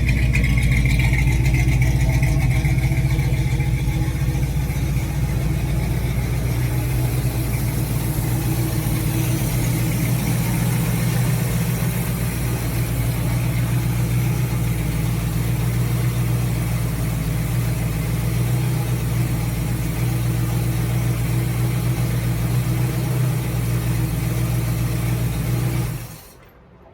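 Old Chevy small-block V8 on a Quick Fuel Brawler four-barrel carburetor idling steadily, a little louder for the first few seconds, then stopping suddenly near the end.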